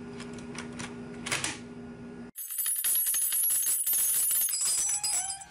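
Keys of a RAKK ILIS mechanical keyboard with blue switches being pressed, a handful of sharp clicks over a steady low hum. After about two seconds it cuts suddenly to loud, bright outro music.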